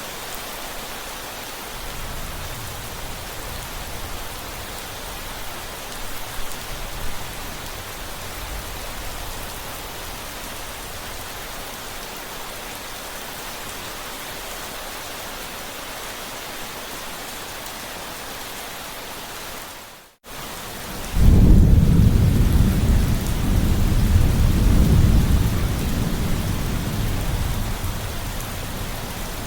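Steady rain falling, with a faint low thunder rumble early on. About two-thirds of the way through the sound fades out for a moment, then a loud, low rolling thunder rumble comes in over the rain and keeps going.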